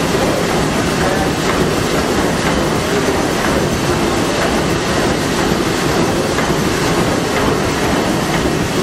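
Liberty ship's triple-expansion reciprocating steam engine running at full speed: a loud, steady mechanical clatter with a faint beat about once a second.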